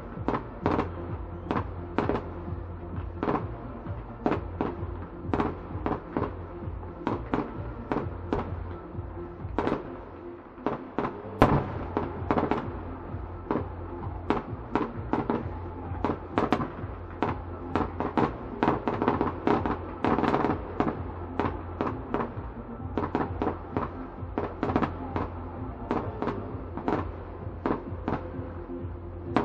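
Fireworks display: a continuous string of sharp bangs and crackling bursts, about two a second, with one louder, sharper bang about eleven seconds in.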